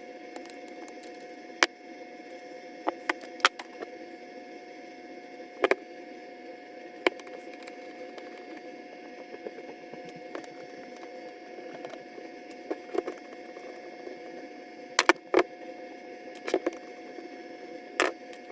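Scattered sharp clicks and light knocks of small metal parts and tools being handled while an angle grinder is taken apart, over a steady hum. The clicks come irregularly, with a loud pair about a second and a half in and a cluster near the end.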